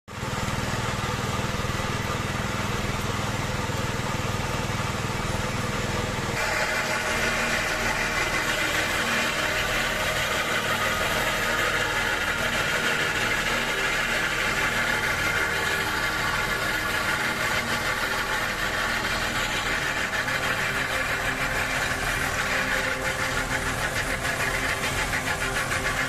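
Engine of a rail-mounted laterite stone cutting machine running steadily, with the grinding of its saw through the red laterite rock. About six seconds in, the sound changes abruptly to a higher grinding.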